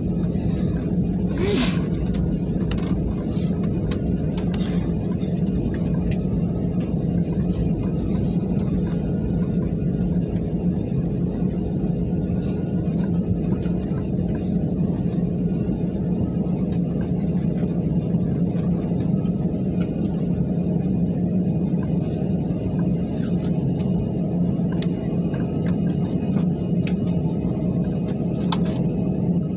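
Steady cabin rumble inside an Airbus A320-family airliner taxiing along the runway after landing: engines at low thrust and wheels rolling on the runway, with a steady low hum. A single short click about a second and a half in.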